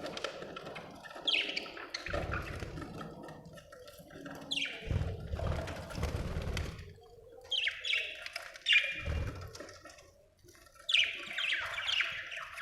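Budgerigars chirping and squawking in bursts of short, quick, downward-sliding calls a few seconds apart, with a low rumble between the bursts.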